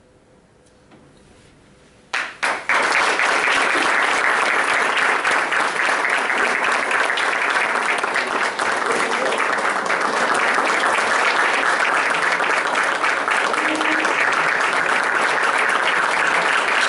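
About two seconds of quiet, then audience applause breaks out suddenly and goes on steadily.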